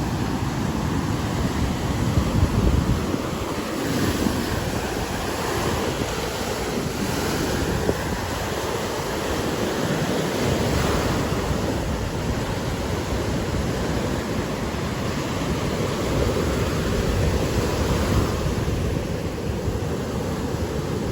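Ocean surf: waves breaking and washing on the shore in repeated swells, with wind rumbling on the phone's microphone.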